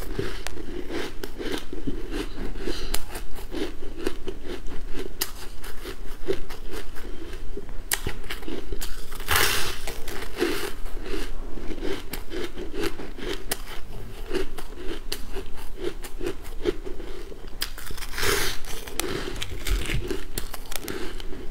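Chewing and crunching frozen coloured ice: a dense, continuous crackle of ice crystals breaking, with a couple of louder bites about nine and eighteen seconds in.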